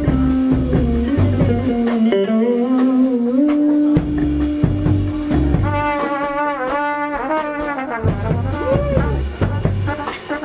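Live jazz jam in 9/8 with trumpet, electric guitar and electric bass. A long held note carries the first half, then a higher note with a wavering vibrato follows, over walking bass notes.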